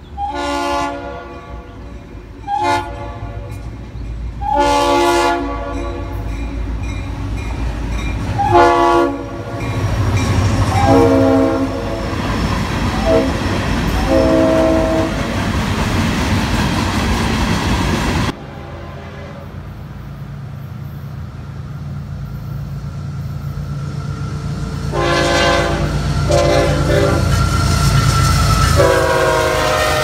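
Locomotive horn sounding a series of chorded blasts for a grade crossing, about seven blasts in the first half, over the rumble and clickety-clack of freight cars rolling past. After an abrupt cut, another locomotive's horn sounds several short blasts and then one long blast over the rumble of the train.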